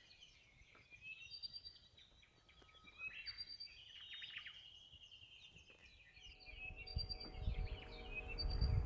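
Birds chirping and calling in short high whistles over quiet outdoor ambience. About six seconds in, a low rumble and steady chime tones fade in and grow louder.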